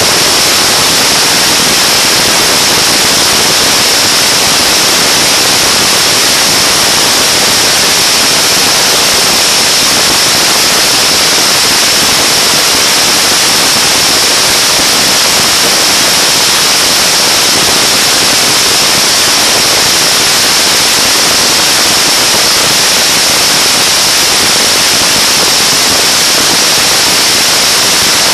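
Loud, unbroken rush of wind and water noise on the camera microphone as a bass boat runs a full-speed pass; an even hiss, strongest in the upper range, with no distinct engine note showing through.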